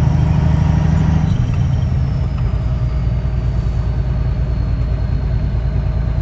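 Truck engine running with road noise, heard from inside the cab while driving; the engine note drops about a second in.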